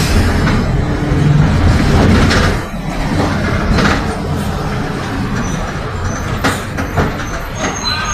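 Mercedes-Benz OF 1721 BlueTec 5 bus's diesel engine running under way, heard inside a Caio Apache Vip IV body; the engine note drops off about two and a half seconds in. Knocks and clatters follow, and near the end come short high-pitched squeaks.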